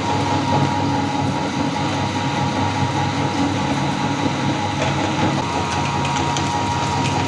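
Electric meat grinder running steadily with a motor whine and low hum as it grinds chocolate bars, with a few light crackles from about five seconds in.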